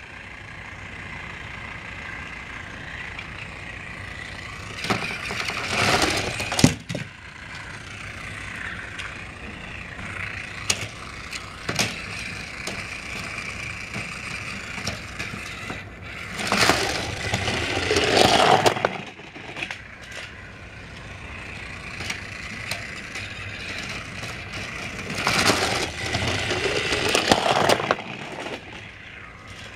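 Battery-powered Trackmaster toy train whining steadily as it runs on plastic track. The sound swells into a louder rattling clatter three times: about a fifth of the way in, just past the middle, and near the end.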